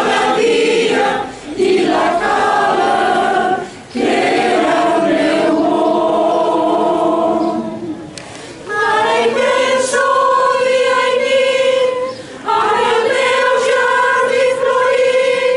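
Mixed choir of men and women singing a traditional Catalan Easter caramelles song a cappella. The sustained phrases are broken by short pauses every few seconds.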